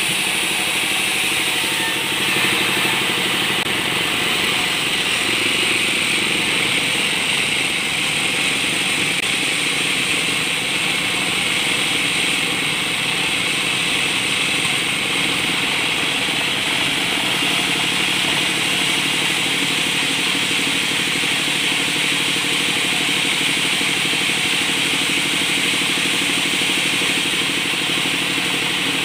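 Sawmill saw and its motor running steadily as balsa timber is fed through and cut.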